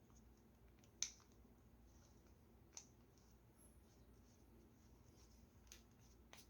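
Near silence broken by a few faint, sharp clicks of a small wrench and metal reel parts being handled as the fishing reel's handle knob is unscrewed; the loudest click comes about a second in.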